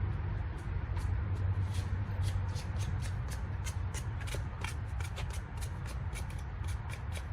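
Sandpaper rubbed briskly over a spark plug's electrode tip, giving quick scratching strokes about three to four a second, over a steady low hum. The sanding scrapes off the carbon build-up that was weakening the spark.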